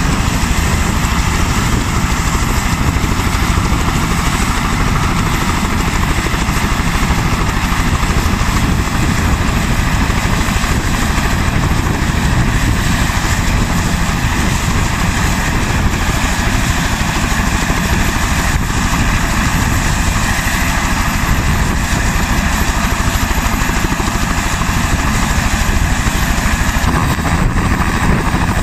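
Bell 206L-1 LongRanger helicopter running on the ground with its two-blade main rotor turning: a steady turbine whine over a fast rotor beat. Near the end the high whine shifts in pitch.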